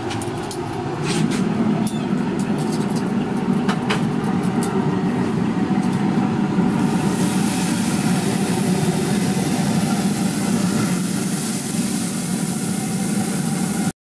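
A few metal clicks and knocks from tongs and the grill in the first seconds over a steady low hum. From about seven seconds in, a steady sizzling hiss as oiled grate and marinated chicken meet the pellet grill's grate, preheated to 450 degrees.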